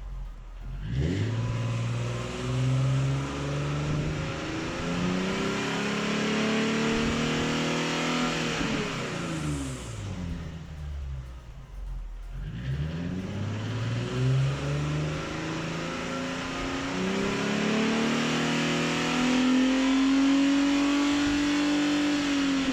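Nissan Fairlady Z 380RS's 3.8-litre V6 running through a newly fitted Amuse Titan exhaust with Torqen cats and Y-pipe, giving a deep note. It accelerates hard twice, rising in pitch each time, and the revs drop away about ten seconds in and again near the end as the throttle is lifted.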